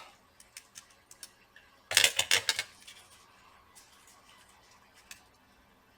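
Small sharp clicks and taps from handling the replacement chip on the laptop motherboard as it is aligned on its pads, with a quick cluster of louder clicks about two seconds in and a few lighter single clicks after.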